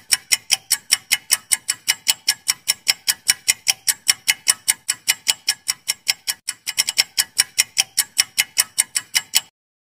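Clock-ticking sound effect of a quiz countdown timer: rapid, even ticks, about four a second, that stop suddenly near the end.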